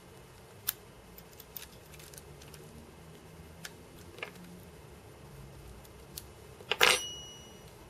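Small clicks and taps of a phone's circuit board and plastic housing being handled and fitted together. Near the end comes a louder metallic clatter with a brief high ring, as of a thin metal tool such as tweezers striking the desk.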